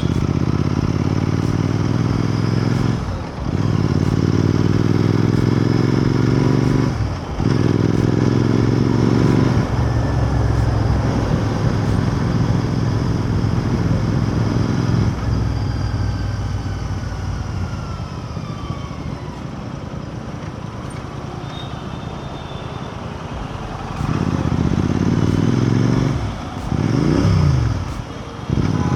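Royal Enfield Continental GT 650's 648 cc parallel-twin engine under way, with wind noise. It pulls up through the gears, the note rising and breaking briefly for shifts about three and seven seconds in. It then eases off, the note falling and quietening for over ten seconds, before pulling strongly again near the end with two more brief breaks.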